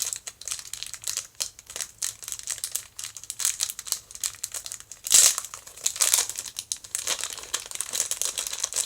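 Packaging crinkling and rustling as a small gachapon keychain is unwrapped by hand, with a louder burst of crinkling about five seconds in.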